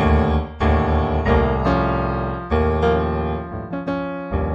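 Improvised solo piano music: chords and melody notes struck every half second to a second and left to ring, thinning out for a moment before a new chord near the end.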